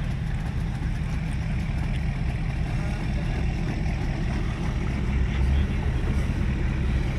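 Steady low rumble of pickup truck engines idling while boats wait in line at a launch ramp.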